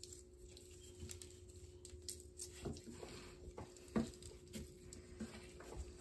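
Light scratching, scraping and tapping of hand work on a freshly grouted mosaic, with one sharper knock about four seconds in.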